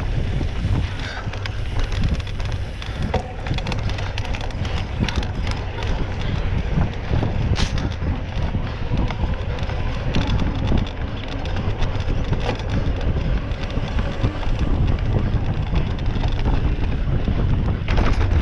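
Wind buffeting the microphone: a loud, continuous low rumble, with a few short clicks and knocks, one sharper one about halfway through.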